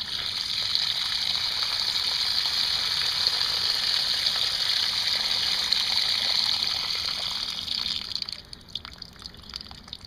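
Water gushing steadily out of a tilted plastic five-gallon bucket, poured through the gap under its lid onto gravel. This is rinse water being drained off crayfish that the lid holds back. About eight seconds in, the flow thins to scattered drips and trickles.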